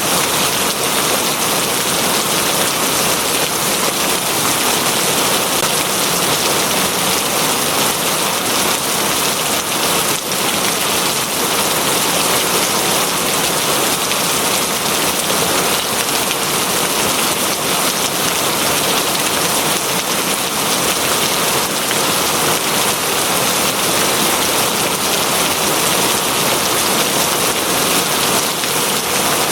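Steady heavy rain falling on a surface, an even dense patter with no breaks.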